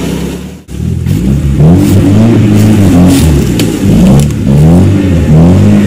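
UAZ off-roader's ZMZ-409 petrol engine revving up and down again and again under load as the truck, rear locker engaged, works its way out of deep mud. The sound drops out briefly about half a second in.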